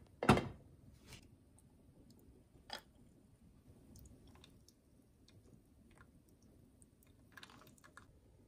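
A sharp glassy clink about a third of a second in, then scattered faint ticks and small clicks: ice cubes in a glass crackling as hot drip coffee runs onto them. A short patter of clicks and handling comes near the end.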